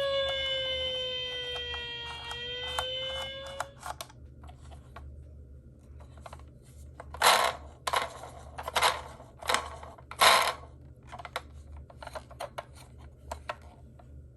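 An electronic toy siren wailing, its pitch sliding slowly down and back up, cuts off about four seconds in. Then come sharp clicks and clacks of toy minicars being handled and knocking against each other, five louder ones in a row past the middle and lighter ones after.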